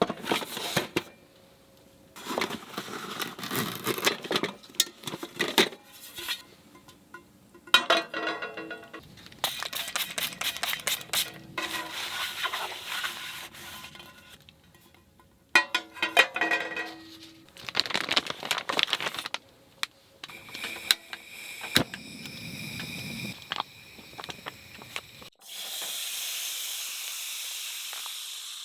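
Camp cooking handling sounds: irregular rustling, tearing and clinks of packaging and cookware. About 25 seconds in, a steady sizzling hiss starts suddenly, as food goes into a hot pan.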